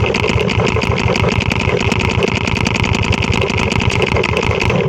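Paintball marker firing a rapid, steady string of shots, roughly a dozen a second.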